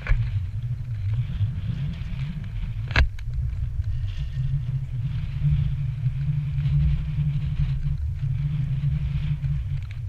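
Wind buffeting the camera's microphone, a steady uneven low rumble, with one sharp knock about three seconds in.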